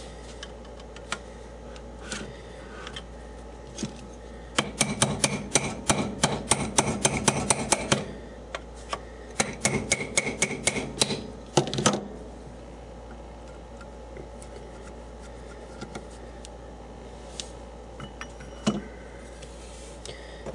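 Rapid knocking and tapping on a small electric motor's metal housing as the end bell is worked loose from the casing, in two runs of a few seconds each. Single clicks of the parts being handled come before and after.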